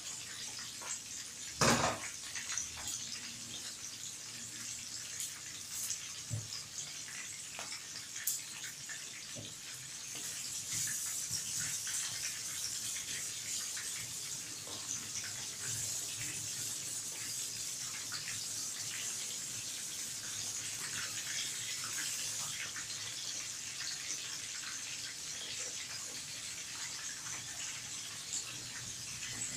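Whole egg-coated tilapia frying in hot oil in a pan: a steady crackling sizzle that grows louder for a stretch in the middle. One sharp knock comes about two seconds in.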